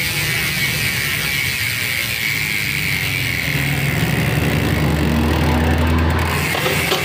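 Upgraded Nautilus Clickr 148 mountain-bike rear hub freewheeling as the wheel spins, its freehub pawls clicking so fast they run together into a continuous wasp-like buzz.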